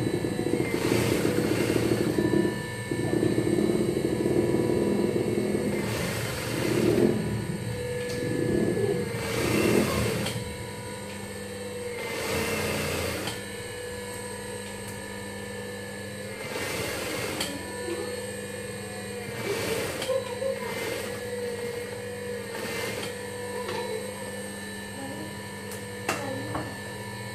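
JUKI industrial sewing machine stitching T-shirt fabric in short runs of a second or two, with its motor humming steadily between runs. The stitching is busiest in the first ten seconds, then comes in a few shorter runs.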